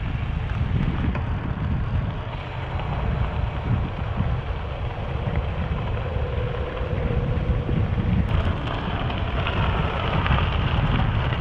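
Wind rumbling hard on the microphone of a bicycle being ridden at speed, over a steady rush of tyre noise.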